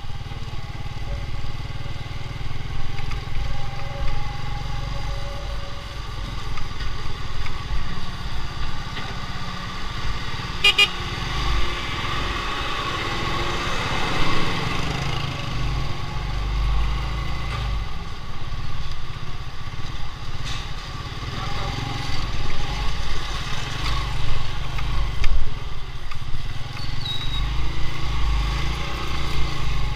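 Motorcycle engine running while riding over a rough dirt road, with wind gusting on the microphone.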